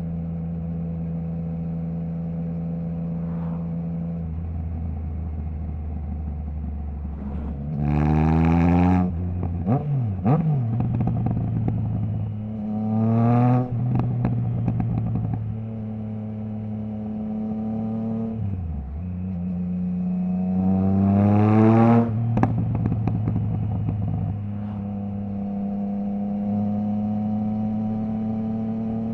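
Triumph Trident 660 inline three-cylinder engine through a Zard stainless full exhaust with the baffle removed: steady cruising, then three hard pulls with the pitch climbing and dropping sharply at each quickshifter upshift. Sharp crackles and pops come off the exhaust when the throttle closes about ten and twenty-two seconds in. It settles back to steady cruising near the end.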